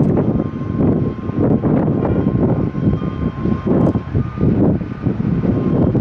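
Jet engines of a Boeing 777 rolling on the runway: a loud rumble with a faint steady whine above it, broken up by gusty wind buffeting the microphone.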